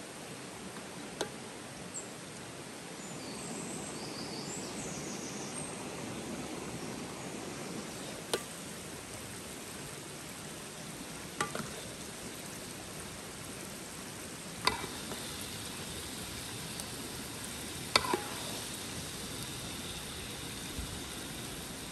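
Red sauce sizzling around a minced chicken roll in a wide aluminium pan over a gas burner, a steady hiss, with a metal ladle clinking sharply against the pan about six times as sauce is spooned over the roll.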